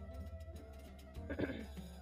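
Soft background music with a held, steady note.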